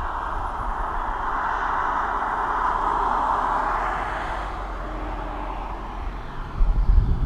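A car passing on the road below, its tyre and engine rush swelling to a peak about three seconds in and fading away, with low wind buffeting on the microphone near the end.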